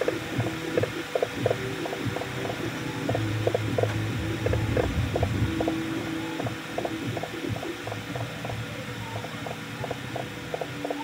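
Musique concrète soundtrack: a steady run of short mechanical clicks, about three a second, over low humming tones that swell and fade.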